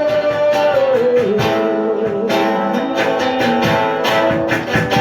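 Worship band music led by guitar, strummed chords under a melodic line that bends and wavers in the first couple of seconds.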